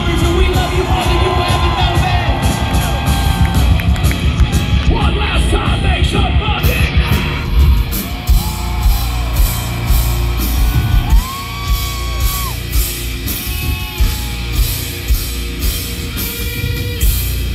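Live hard rock band playing loud through a festival PA, heard from within the crowd: distorted guitars, heavy bass and pounding drums. Fans yell and whoop over the music.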